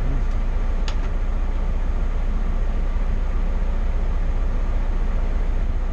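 Motorcoach's diesel engine idling with a steady low rumble, heard from the driver's seat. A single light click about a second in.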